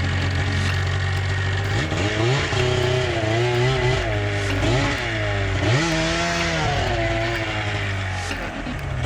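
Arctic Cat M6 mountain snowmobile's two-stroke engine idling, then revved up and down again and again for several seconds as the buried sled is driven to climb out of deep snow, dropping back to idle near the end.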